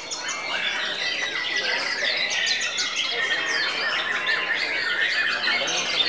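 White-rumped shamas singing: a dense run of quick, varied whistles and trills, with several songs overlapping and no break.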